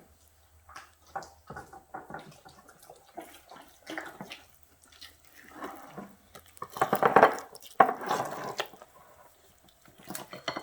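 Cake batter being stirred in a mixing bowl: wet, irregular sloshing and clicks of the utensil against the bowl, busiest about two-thirds of the way through.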